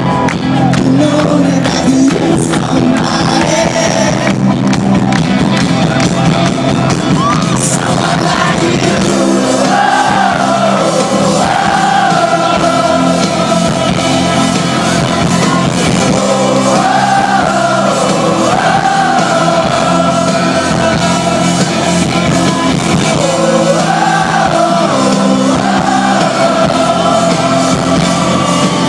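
Rock band playing live, with electric guitars, drums and a lead vocal, heard from within the crowd through a phone's microphone. From about nine seconds in, a sung phrase that rises and falls recurs every few seconds.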